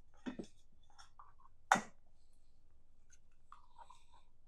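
Light handling knocks and clicks, a pair near the start, then one sharp knock a little under two seconds in, with faint rustling later.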